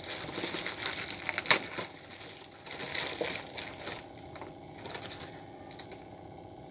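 Packaging being torn and pulled open: crinkling and crushing with a few sharp snaps, the loudest about a second and a half in, dying down after about four seconds.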